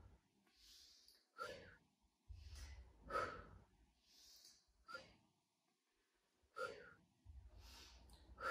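A woman's faint breathing during a side-lying leg-lift exercise: short sharp exhales about every second and a half to two seconds, keeping time with the lifts, with softer inhales between.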